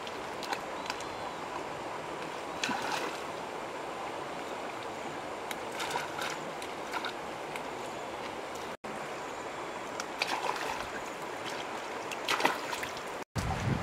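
Steady rush of shallow stream water, with short splashes and rustles every few seconds as hands pull and rinse plant stems in the water. The sound drops out for an instant twice near the end.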